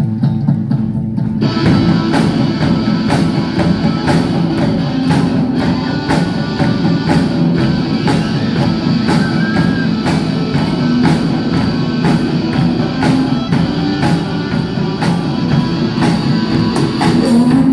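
Live rock band playing an instrumental passage: electric guitars and bass guitar hold low notes, then the drum kit comes in about a second and a half in and the full band plays on with a steady beat.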